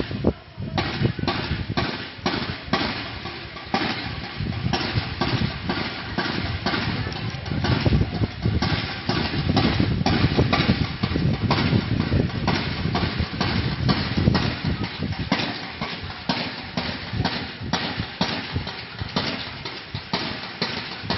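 A steady rhythm of sharp knocks, about two a second, over a low rumbling background.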